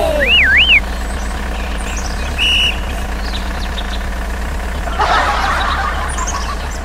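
A low, steady engine runs like a tractor's, for a miniature two-wheel walking tractor. A short warbling whistle comes about half a second in, a brief high beep around two and a half seconds, and a burst of hiss about five seconds in.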